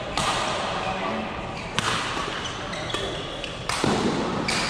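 Badminton rally in a large hall: several sharp racket hits on the shuttlecock, one to two seconds apart, with brief squeaks of court shoes over background chatter.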